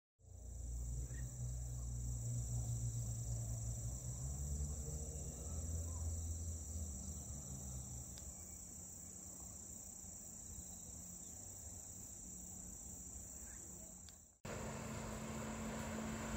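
Crickets chirring steadily in a grassy field, with a low rumble of wind on the microphone that is strongest in the first seconds. Near the end the sound cuts abruptly to the steady hum of a distant motorboat on a lake.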